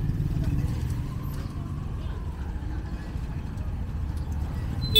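Street traffic: a steady low rumble of motorbike engines running. Near the end there is a single sharp clink with a brief ringing tone.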